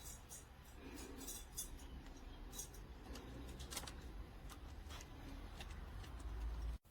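Faint, scattered light clicks and clinks of small hard objects being handled, over a low steady hum, stopping abruptly near the end.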